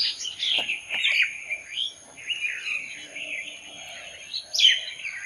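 Birds chirping and calling in many short, overlapping notes, with one louder call near the end and a steady high-pitched tone underneath.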